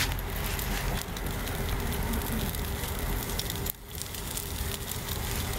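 Open wood fire in a fire pit, burning under a grill grate with a whole fish on it: crackling, with many small pops over a steady hiss. The sound drops away briefly a little before four seconds in.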